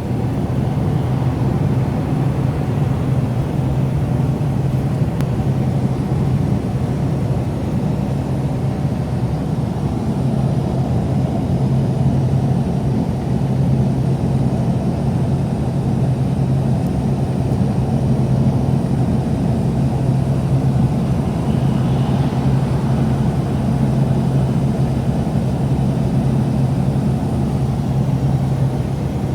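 Car travelling at a steady speed: a constant low engine and road drone that stays level throughout.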